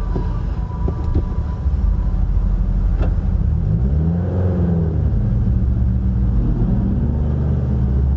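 Car engine and road rumble heard from inside the cabin, steady and low, with the engine note rising as the car picks up speed about four seconds in. A brief click about three seconds in.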